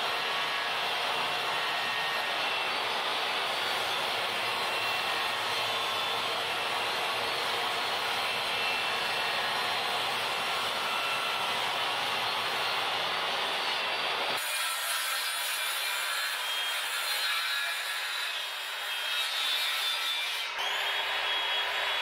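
Benchtop table saw running and ripping a board: a steady motor whine with cutting noise. About fourteen seconds in the sound changes abruptly, and near the end a handheld circular saw cuts across a board.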